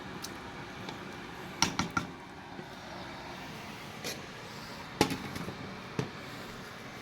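A few sharp clinks and knocks, three close together near the second second and single ones later, over a steady background hum.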